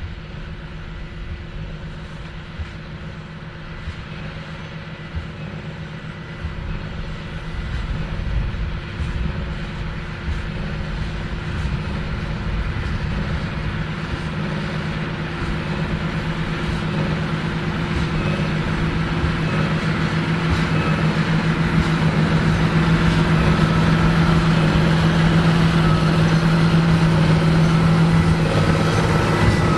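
John Deere 8530 tractor's six-cylinder diesel engine running steadily under load while baling, growing gradually louder as it comes closer.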